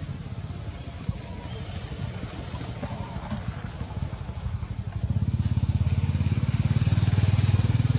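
An engine running with a low, fast-pulsing drone that grows louder about five seconds in.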